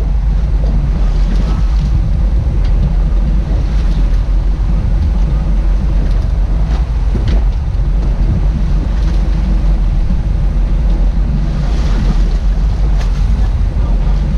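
Boat engine running steadily under way, a constant low hum, with wind buffeting the microphone and water rushing past the hull.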